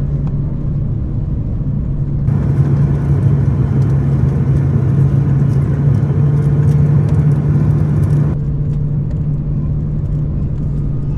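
Airbus A330-300 cabin noise: a steady low hum, joined from about two seconds in by a louder, hissing noise with rattles and clicks that lasts about six seconds and stops abruptly.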